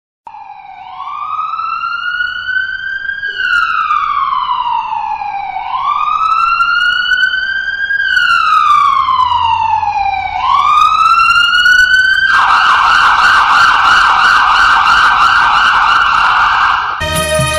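Recorded emergency-vehicle siren played over stage loudspeakers as a sound effect: a slow wail rising and falling about every five seconds, switching about twelve seconds in to a fast yelp. Music comes in just before the end.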